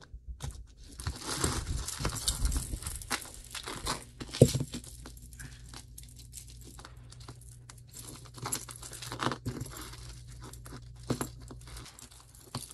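Packaging crinkling and rustling as jewelry is handled, with one sharp click about four seconds in.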